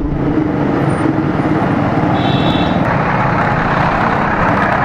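Bajaj Avenger 220's single-cylinder engine running while the motorcycle rides, mixed with wind and road noise and surrounding traffic. A brief high-pitched squeal comes about two seconds in.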